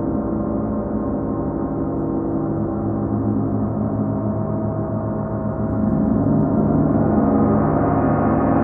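38-inch Paiste gong sounding a dense, sustained wash of many overlapping tones, swelling louder and brighter about six seconds in.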